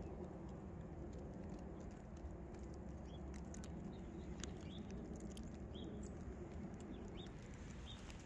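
Faint outdoor ambience in snow: a low steady rumble with scattered light clicks, and a few short, high chirps about once a second through the middle.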